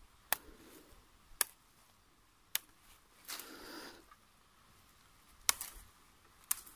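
Moringa (malunggay) leaf sprigs snapped off by hand, five sharp snaps about a second apart, with a short rustle of leaves in the middle.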